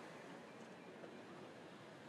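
Near silence: faint, steady outdoor background noise with no distinct sounds.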